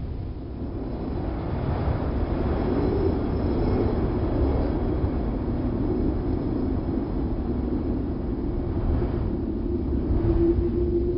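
Wind sound effect: a steady low rumble of wind with a wavering howl that settles into a steadier hum near the end.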